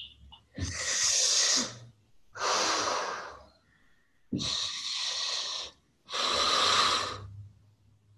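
A woman breathing long and deep in and out through her mouth, the air drawn through the small opening between her thumbs pressed to her lips: four breaths of a little over a second each, inhales and exhales in turn, with short pauses between.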